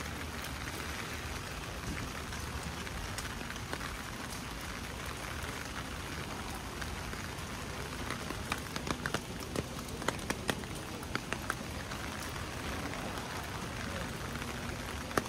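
Steady rain falling, with sharp ticks of individual drops or knocks coming in from about halfway through.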